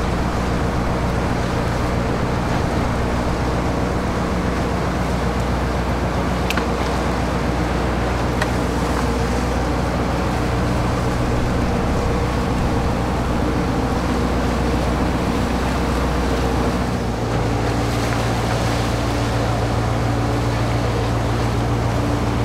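Fishing boat's engine running steadily under way, with wind and water rushing past the hull. The engine note changes about seventeen seconds in.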